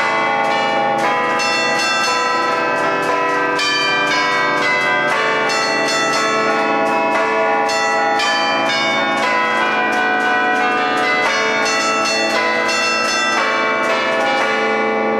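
A set of twelve church tower bells played from a hand keyboard in the Lombard allegrezza style, the clappers struck in quick succession to carry a band-style tune. The notes ring into one another in a continuous, dense melody.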